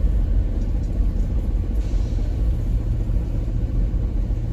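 Loaded grain truck's engine idling with a steady low rumble while it waits in line at the elevator, with a faint brief hiss about two seconds in.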